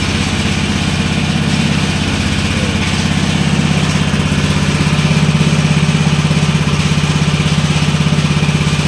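Small portable petrol-engine water pump running steadily, pumping water to flush out the repaired bore well.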